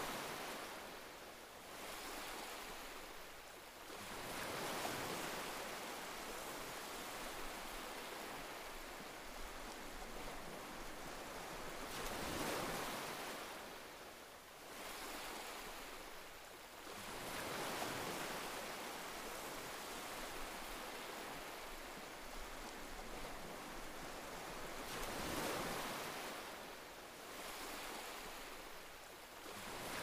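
Ocean surf: waves breaking and washing in, each surge of rushing water swelling and fading about every five to eight seconds.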